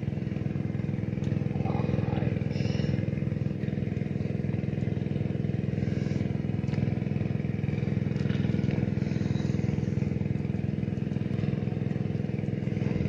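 A small engine running steadily at one speed, a constant low drone that does not rise or fall.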